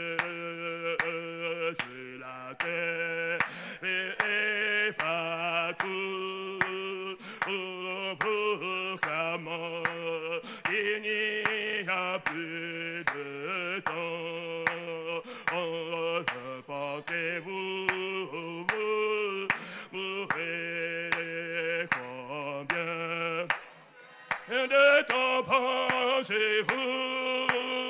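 Congregation singing a French hymn, a man's voice leading at the microphone, with hand claps keeping time. The singing breaks off briefly near the end, then comes back louder.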